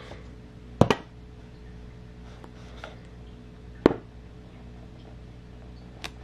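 A wooden-handled book stamp tapped against an ink pad and pressed onto a book's title page: sharp taps, a double tap about a second in, a single one near four seconds and a faint one near the end.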